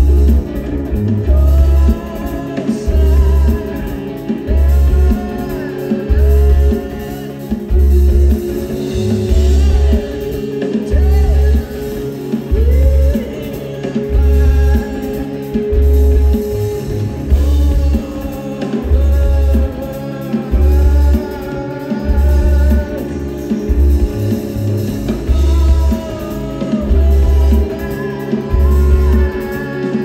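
A rock band playing live: a sung vocal line over guitar and drums, with a deep bass note pulsing about every second and a half.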